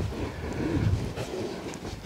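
A rolled canvas swag (bushman's bedroll) being picked up and handled: low thuds and rustling of heavy canvas, with a couple of light knocks near the end.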